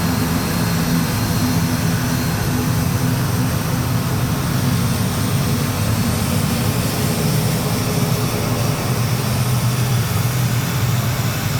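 Aeroplane engines running loud and steady during takeoff, a constant low hum over a wide rush of noise.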